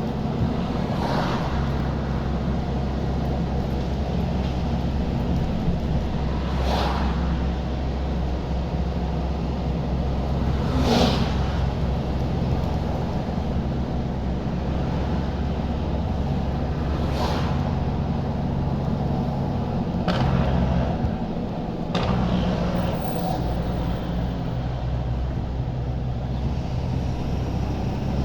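Straight-piped Detroit Diesel Series 60 14-litre inline-six diesel engine running steadily, its exhaust note shifting a little about two-thirds of the way through. Several short hissing sounds break in over it, about half a dozen times.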